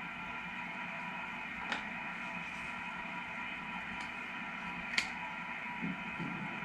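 Steady background hum with two light, sharp clicks and a soft knock near the end, from small shifter parts being handled during teardown.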